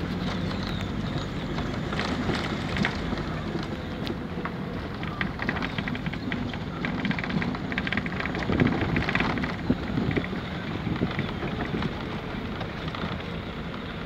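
Car driving along a narrow road, heard from inside: steady engine hum and tyre noise with wind, and scattered small clicks and rattles.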